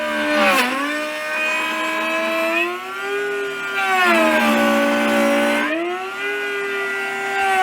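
Router in a router table cutting a groove with a 5/8-inch bit through a pine board: a loud motor whine whose pitch drops and recovers a few times as the feed loads the bit.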